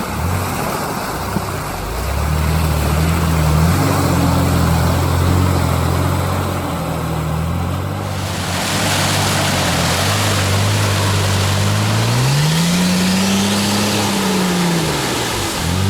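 Off-road vehicle engine running hard under load, its pitch stepping up and down, then revved up and let fall once near the end and revved up again. A rushing noise grows stronger about halfway through.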